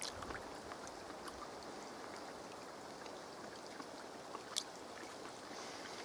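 Steady, faint rushing background noise with a few scattered faint ticks, and one sharper click about four and a half seconds in.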